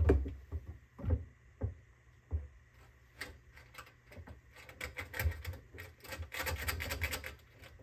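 Pull-chain switch on a fluorescent fixture clicking and rattling as it is worked: separate clicks about a second apart at first, then a quicker run of clicks in the second half. The switch is poor quality and does not switch the lamps on reliably.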